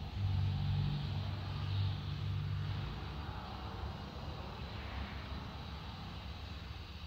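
A low steady mechanical hum, loudest for about the first three seconds and then fading away.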